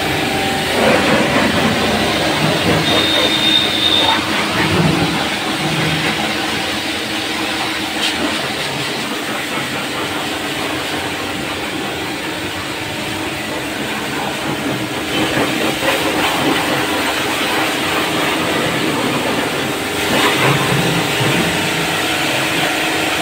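Annovi Reverberi plunger-pump pressure washer, driven by a 3 HP single-phase electric motor, running steadily. A hum sits under the hiss of the high-pressure water jet.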